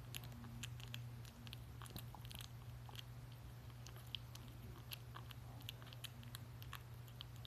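Kitten chewing wet cat food from a bowl: many small, irregular wet clicks and smacks. A steady low hum runs underneath.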